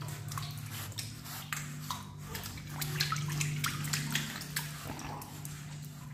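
Asian small-clawed otters scrambling and scuffling on the floor right at the phone: a rapid run of scratchy clicks and rustles from claws and wet fur, busiest in the middle, over a steady low hum.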